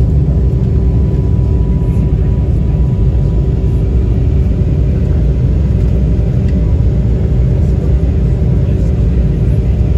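Steady, loud low rumble inside the cabin of an Embraer E195-E2 climbing after takeoff, from its underwing Pratt & Whitney PW1900G geared turbofan and the airflow, with a constant hum running through it.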